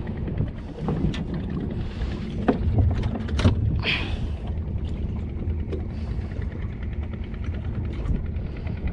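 Steady low rumble of a small boat at sea with wind on the microphone, broken by a few sharp clicks and knocks as a caught stingray is handled with pliers and scissors, and a short hiss about four seconds in.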